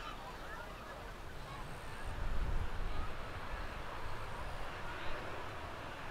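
Distant jet airliner engines: a low steady rumble that swells about two seconds in, over a faint outdoor background hiss.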